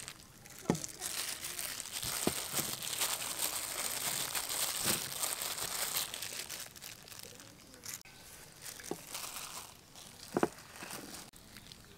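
Plastic food-prep glove crinkling and flour rustling as chicken wings are tossed and pressed in a tray of flour, with a few light knocks. It is busiest in the first several seconds and quieter after that.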